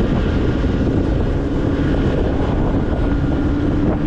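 Motor scooter riding along a road, its engine humming steadily under wind noise on the microphone.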